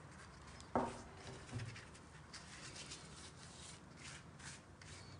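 Silicone pastry brush swishing in quick strokes over stacked sheets of thin baklava pastry, spreading melted butter and oil, with soft rustling of the sheets. A short sharp sound about a second in, with a dull thud just after.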